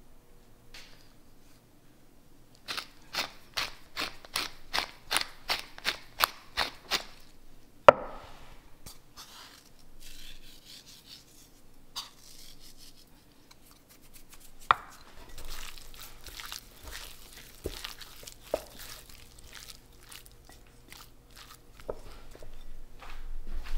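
A pepper grinder turned over raw chicken: a run of crisp clicks, about three a second, for four seconds, then a single sharp knock. After that, hands rub and squish raw chicken pieces in a glass bowl to work the seasoning in, louder toward the end.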